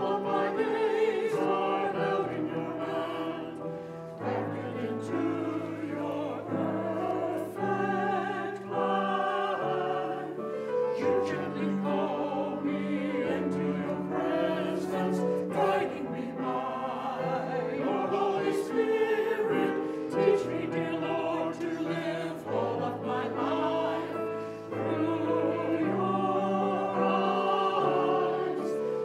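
Group of voices singing a slow worship song over sustained low accompaniment notes that change every second or two.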